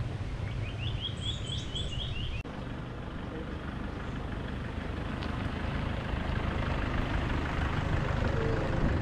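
A bird gives a quick run of about seven short chirps in the first two seconds. Then a Toyota Hilux safari jeep drives up over a dirt yard, its engine and tyres growing steadily louder as it approaches.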